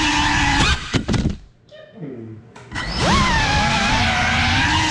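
GEPRC CineLog35 cinewhoop's brushless motors and ducted propellers whining, the pitch rising and falling with throttle. About a second in there are a few sharp knocks and the whine falls away and winds down. Near three seconds in it spools back up with a sharply rising pitch and keeps going.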